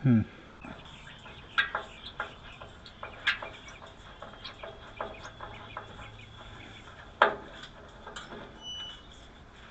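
Scattered clicks and knocks of small parts and tools being handled, a dozen or so irregular strikes with the loudest knock about seven seconds in.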